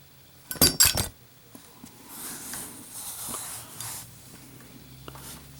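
Zippo windproof lighter put through a drop test: a quick cluster of loud metal clacks about a second in, followed by a soft, hissy rustle lasting a couple of seconds.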